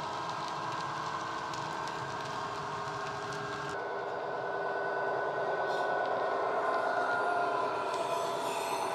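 Digital engine sound of a model Class 66 diesel locomotive, the recorded EMD two-stroke diesel of the real engine, played by an ESU LokSound decoder through the model's small speaker. Faint clicks of model wagon wheels on the track come first. About four seconds in the sound changes abruptly, and the engine then grows gradually louder as the locomotive approaches.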